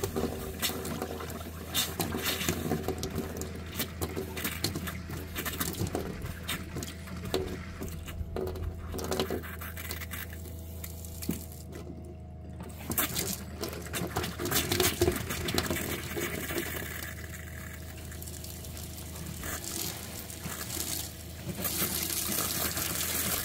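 Water spitting and splashing from a campervan kitchen tap into a stainless steel sink as air is bled from the lines, settling into a full stream near the end. Underneath is the steady hum of the newly fitted Shurflo Trail King 10 diaphragm pump running.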